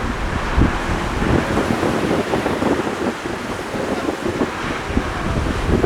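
Strong gusty wind buffeting the microphone, a steady rushing noise with irregular low thumps.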